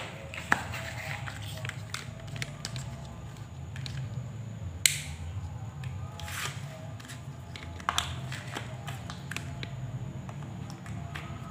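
Scattered light clicks and knocks as a power cable and its two-pin plug are handled and pushed into a power-strip socket, the sharpest about five seconds in, over a steady low hum.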